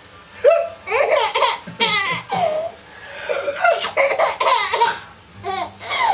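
A baby laughing in several separate bursts, with short pauses between them.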